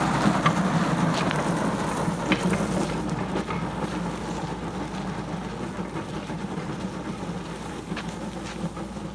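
A car-tire sled dragged on a rope over gravel and dirt, making a steady scraping rumble with scattered small clicks. It fades gradually as the sled is pulled away.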